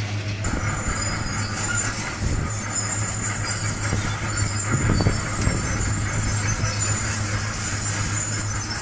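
Heavy machinery running with a steady low hum, intermittent high metal-on-metal squeals and a few dull knocks around the middle.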